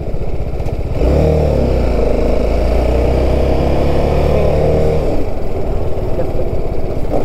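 Motorcycle engine pulling under throttle from about a second in, speed rising, then easing off about five seconds in as the bike rolls on, with wind and road noise.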